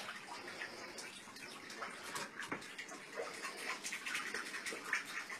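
Water splashing in a bathtub in small, irregular splashes.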